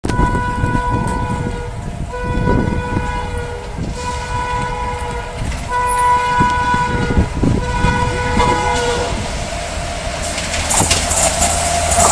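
WAP7 electric locomotive's horn honking in a run of about five blasts, each roughly a second and a half long. Near the end comes the rushing noise and wheel clatter of the train passing close by.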